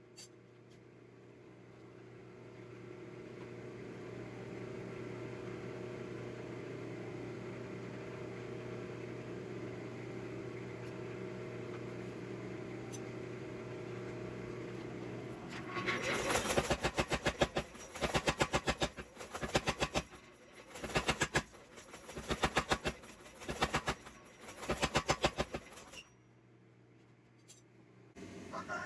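A steady mechanical hum that swells over the first few seconds. From about halfway there are several bursts of quick, sharp hammer strikes on hot iron at the anvil, and these stop a few seconds before the end.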